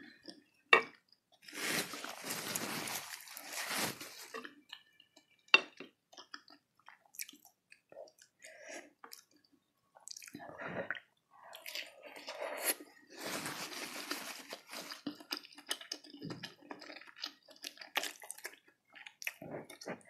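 Close-miked wet chewing of beef fat and beef meatballs from a spicy broth, in irregular bursts, with a few sharp clicks of a wooden spoon against the bowl.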